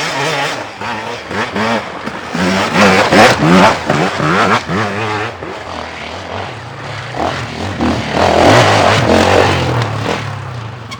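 Enduro dirt-bike engines revving, the pitch climbing and dropping quickly over and over. It is loudest about three seconds in and again about eight to nine seconds in, over a steady low engine drone.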